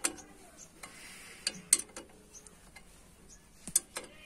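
Allen key turning and knocking against the bolts of a steel dish-antenna wall bracket as they are tightened: a handful of sharp metallic clicks at irregular intervals, the loudest just under two seconds in.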